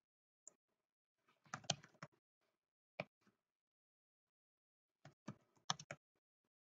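Faint typing on a computer keyboard: a quick burst of keystrokes, a single key a moment later, then another short burst.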